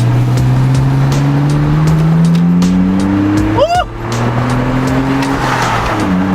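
2004 BMW 325i's inline-six through a muffler-delete dual straight pipe, accelerating with the note slowly climbing in pitch. About three and a half seconds in there is a short rising squeal and a brief dip in sound as it shifts up, and then the engine pulls again from a lower pitch.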